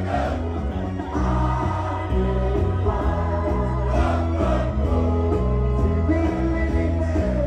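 Large crowd of football fans singing together along to music played over loudspeakers, with a bass line stepping between notes.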